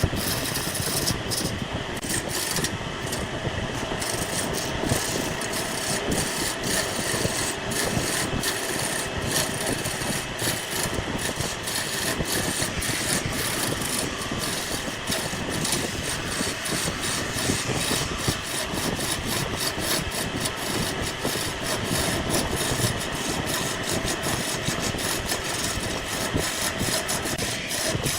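Homemade chainsaw running steadily while it cuts through a large log, without a break.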